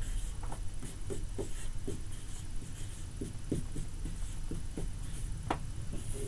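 Dry-erase marker squeaking against a whiteboard in many short strokes as capital letters are written out and underlined. A steady low hum sits underneath.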